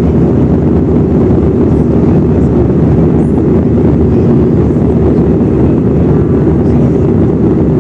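Steady, loud drone of an Airbus A320's engines and rushing air, heard inside the cabin from a seat over the wing, in flight shortly after takeoff.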